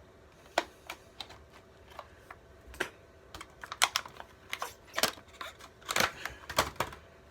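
Tool packaging being handled and opened by hand, making a run of irregular sharp clicks and crinkles that come thicker from about halfway in.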